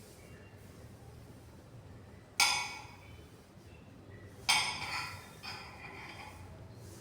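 Two sharp metallic clinks about two seconds apart, each ringing briefly, then a fainter knock, like hard containers or tools being set down on metal.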